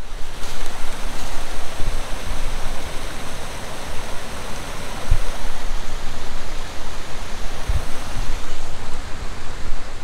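Creek water rushing over small rock cascades, a steady rush with a few brief low thumps.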